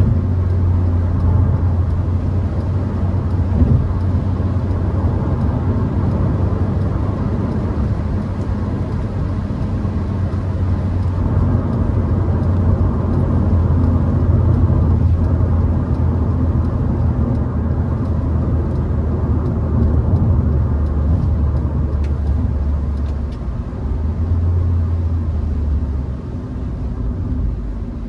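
Cabin noise of a Hyundai HB20 1.6 automatic driving at road speed: a steady engine and road drone with tyre noise. The low drone eases off a couple of seconds before the end.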